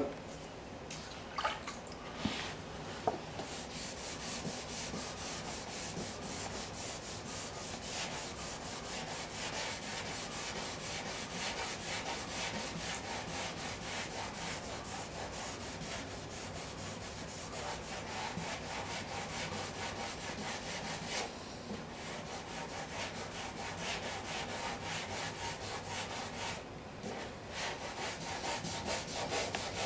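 Sandpaper on a Durablock sanding block rubbed back and forth over a car's painted body panel, a quick steady rhythm of strokes that pauses briefly twice. The block is levelling paint runs in the clear coat.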